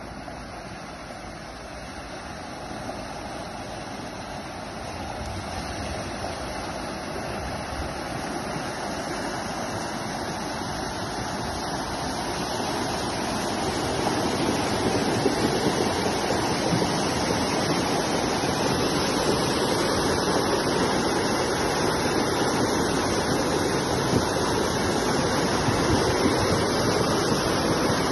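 Flash-flood water rushing down a rocky stream bed. The rush grows steadily louder over the first half as the flood front arrives and fills the channel, then holds at a steady level.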